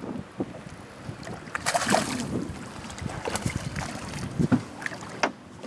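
A hooked spotted bass being brought to the side of a boat and landed by hand: a splash at the surface about two seconds in and scattered knocks, over wind buffeting the microphone.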